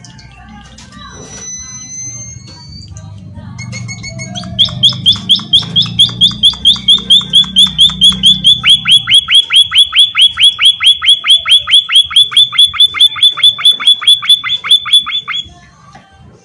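A bird calling a long, fast run of repeated down-slurred notes, about five a second, starting about four and a half seconds in and stopping abruptly about a second before the end. Before the run there are a few thin rising whistles.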